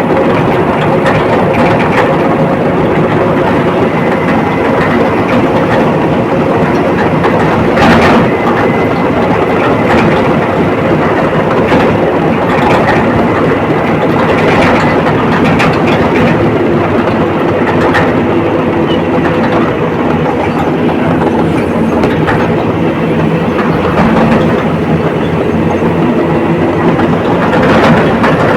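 Komatsu D85ESS crawler bulldozer working: its diesel engine runs steadily under the clatter of its steel tracks. A few sharper knocks stand out, loudest about eight seconds in and near the end.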